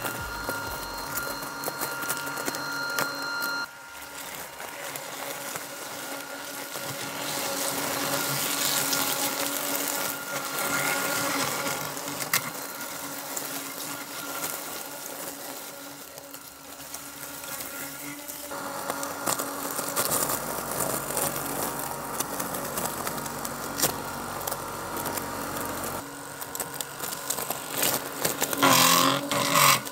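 Mammotion Luba 2 AWD robotic mower running, its electric drive and blade motors whirring steadily as it drives through leafy ground cover. The tone shifts abruptly a few times. There is a brief loud burst of noise near the end.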